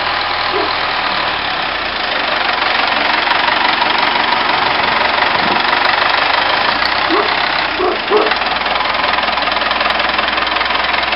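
Old wheel loader's diesel engine running with a steady clatter, getting louder about two seconds in.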